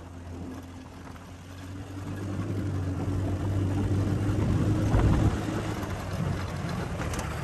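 Engine of a 200cc off-road go-kart running as the kart drives off, getting louder from about two seconds in as it picks up speed.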